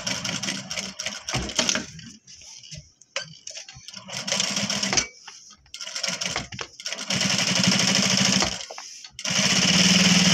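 Industrial sewing machine stitching in stop-start runs: several short bursts with brief pauses between, the longer and louder runs in the second half.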